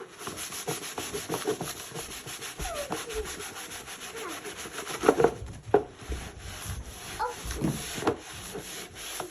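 Rapid back-and-forth scrubbing or sanding strokes on motorcycle plastic covers, with a few short squeaks.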